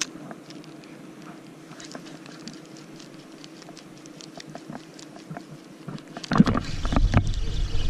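Small spinning reel being cranked: faint, irregular light clicks over a steady low hum. About six seconds in, loud rubbing and knocking handling noise starts right at the microphone as the catch is brought in by hand.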